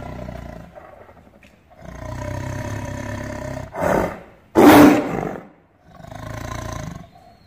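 Tiger growling and snarling in a series of calls: a long steady growl, then two short loud snarls a little past halfway, the second the loudest, and one more growl near the end.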